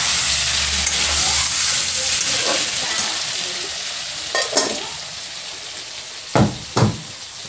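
Paneer cubes frying in oil with turmeric and salt in a kadhai, sizzling steadily while a spatula stirs them. The sizzle fades gradually. There are a couple of knocks about four and a half seconds in, then two thumps near the end.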